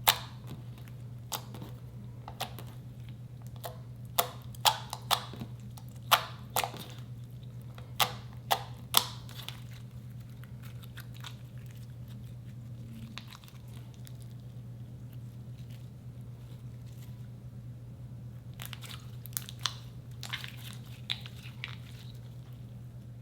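Slime being pressed and worked by hand, giving sharp pops and crackles: about ten in the first half, then a few more near the end, over a steady low hum.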